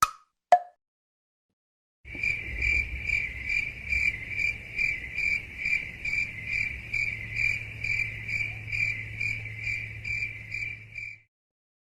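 Cricket chirping: a steady high-pitched chirp repeats about twice a second for about nine seconds, over a low hum. It starts after two sharp wood-block knocks at the very beginning and a short silence.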